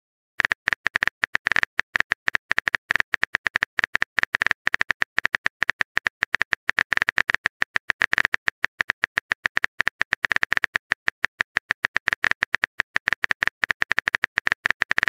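Rapid, uneven clicks of phone-keyboard typing, many taps a second, starting about half a second in.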